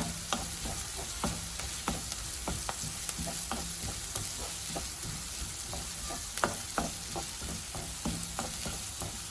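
Chopped onions, ginger, garlic, chilies and shallots sizzling in hot sunflower oil while being stirred, the stirring utensil knocking and scraping against the pan about twice a second.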